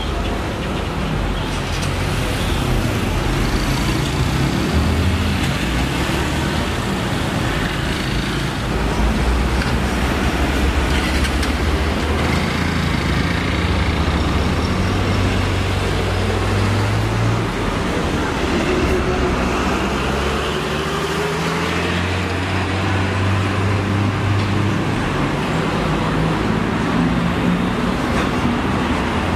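Road traffic: car and bus engines running, idling and pulling away, with their low hum shifting in pitch and one engine rising briefly past the middle.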